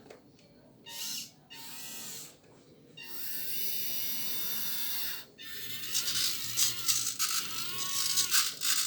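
Small electric motors of a 3D-printed 1/14-scale RC forklift whining in several separate runs, the pitch rising and falling as they speed up and slow down. The longest and loudest run starts a little past halfway.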